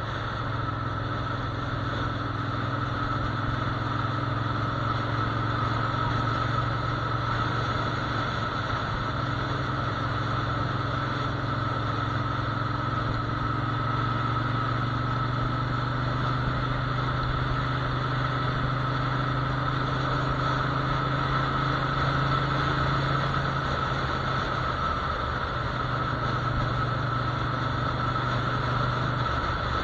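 Motorcycle engine running steadily while riding, a low hum with a thin constant high whine over it; the engine note shifts briefly near the end.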